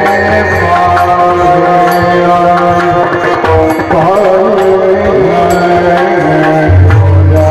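Marathi devotional bhajan music: sustained melodic tones over hand-drum accompaniment, with regular sharp cymbal-like strikes.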